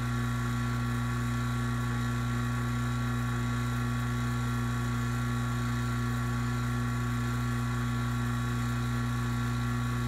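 Refrigeration vacuum pump running steadily during a deep evacuation, a constant electric-motor hum that does not change.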